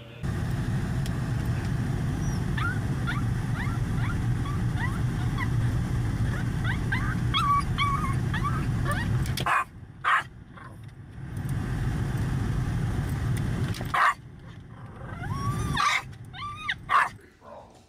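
Small long-haired dog whimpering and yipping in short, high squeaks, heard inside a moving car over the steady low rumble of the cabin, which drops away for a moment about halfway through.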